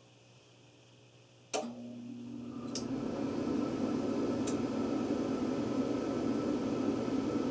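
Home furnace starting up: a sharp click about a second and a half in, then a steady rushing run with a hum, building for a second or so before it levels off. Two lighter ticks follow a few seconds later.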